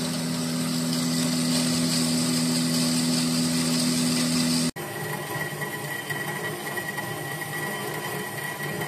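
Metal-cutting band saws cutting aluminium: first a horizontal band saw running through an aluminium bar, a steady hum with a high hiss, then, after an abrupt cut about halfway, a vertical band saw cutting an aluminium plate, steady with a thin high whine.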